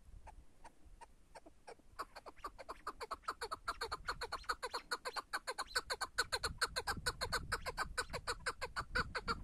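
Chukar partridge calling: a few spaced 'chuk' notes that speed up about two seconds in into a fast, even run of chuckling notes, the typical rally call of the species.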